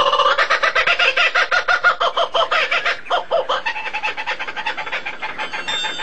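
Fowl calling in a fast run of clucks, about ten a second, fading after about three and a half seconds.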